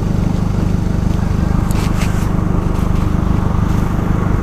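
An engine running steadily with a fast, even throb, with a few sharp clicks or knocks about two seconds in.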